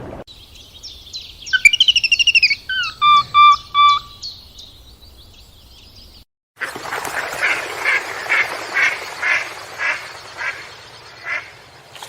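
Bird calls in two separate recordings, split by a sudden cut. First comes a burst of quick chirps, then short whistled notes. After the cut comes a run of harsh, rasping calls at about two a second.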